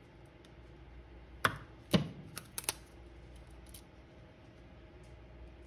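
A utility knife and thin plastic LED eye strips handled on a counter: a click about one and a half seconds in, a sharper knock half a second later, then a few light clicks.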